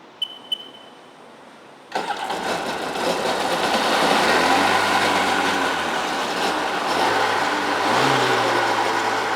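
Two short electronic beeps, then the 2001 Sea-Doo GTX DI's two-stroke twin engine starts about two seconds in and runs, its pitch rising and falling a little. It is running only on a little fuel poured down the cylinder, as the watercraft has no gas in its tank.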